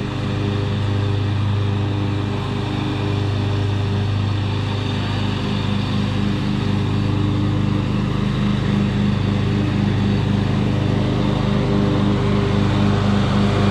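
John Deere X540 riding lawn mower running steadily with its blades cutting grass, a constant engine note that grows a little louder near the end as the mower comes closer.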